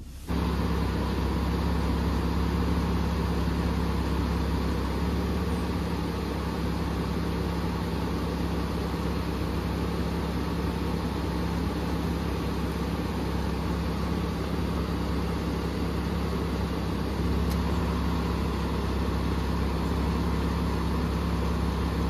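2015 Jeep Grand Cherokee engine idling steadily, an even low hum that doesn't change.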